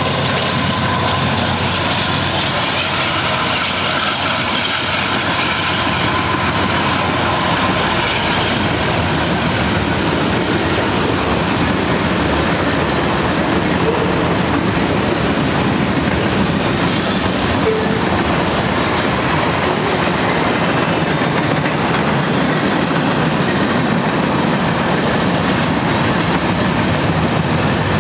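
Union Pacific mixed freight train passing close by: the trailing diesel locomotives' steady engine tone fades over the first several seconds, then a long string of freight cars rolls past with continuous steel-wheel-on-rail noise and clickety-clack over the rail joints.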